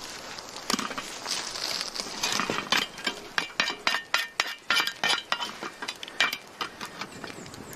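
Sharp, irregular clinks and knocks of metal camp cookware as damper bread is checked over the fire, about three a second, loudest in the middle and thinning out near the end.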